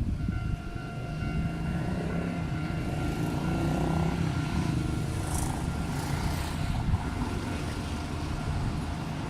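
Toden Arakawa Line tram running, a steady low motor hum with a thin higher whine, growing louder towards the middle and then easing off a little.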